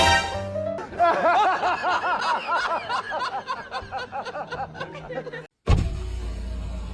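Rapid chuckling laughter, many short arching 'ha-ha' notes in quick succession for about five seconds. It cuts off suddenly and gives way to steady low rumbling noise near the end.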